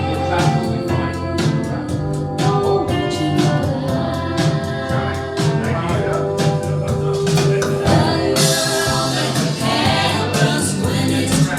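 Recorded music with singing and a steady beat, played back over Acora Acoustics hi-fi loudspeakers.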